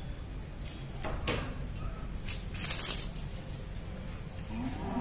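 Green plant stalks being split and stripped by hand, making a few short rustling swishes.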